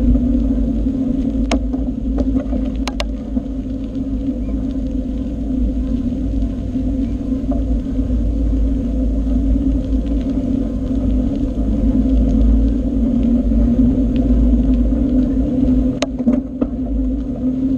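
Riding sound of a mountain bike on the move: a steady droning hum over a constant low rumble. A few sharp clicks or knocks come about a second and a half in, around three seconds in, and near the end.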